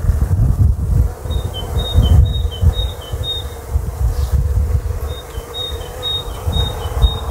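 Bees buzzing around the blossoms of a flowering fruit tree, a steady hum. A small bird sings a quick, repeated two-note phrase twice, from about a second in and again about five seconds in, over a fluctuating low rumble.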